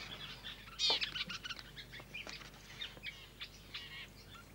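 Birds chirping and calling in the bush, many short high chirps with one louder downward-sweeping call about a second in.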